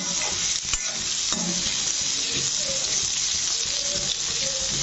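Chopped onions with whole coriander, cumin seeds and dried red chillies sizzling steadily in hot oil in a kadai while a spatula stirs them, scraping and clicking against the pan now and then.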